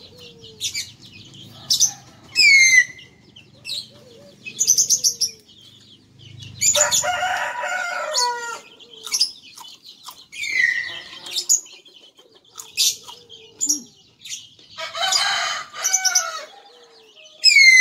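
A rooster crowing twice, about seven and fifteen seconds in, over smaller birds chirping with a repeated falling whistle.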